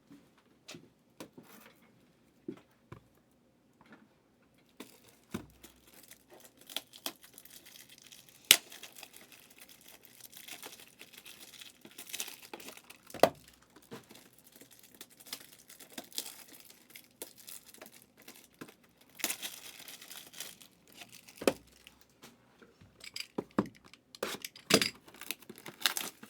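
Plastic shrink wrap and cardboard packaging of a sealed trading-card hobby box being torn and crinkled open, with scattered sharp clicks and taps.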